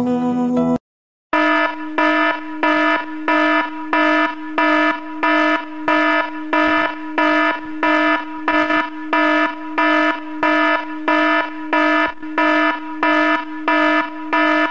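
An electronic alarm sounding: a harsh buzzing tone pulsing on and off about twice a second. It starts just after a song cuts off, about a second in.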